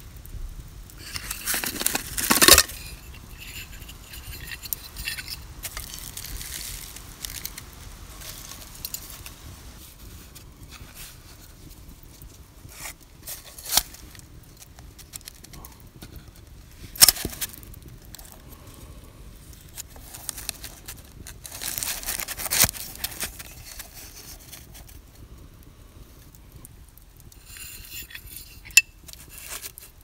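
Baking paper crinkling and rustling as bread dough is handled into a paper-lined anodized aluminium cooking pot, with a few sharp metallic clinks from the pot, its lid and its wire handle.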